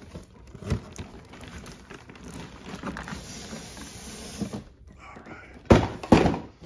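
Cardboard boxes rustling and scraping as a boxed RC crawler truck is worked out of its shipping carton. Near the end come two loud thunks of the box being handled.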